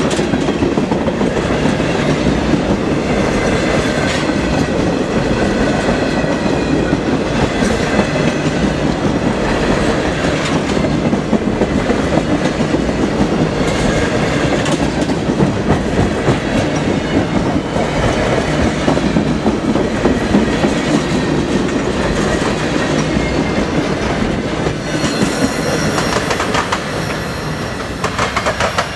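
CSX freight train cars rolling past close by, steel wheels clicking rhythmically over rail joints with a faint wheel squeal. About 25 seconds in the sound thins as the end of the train goes by.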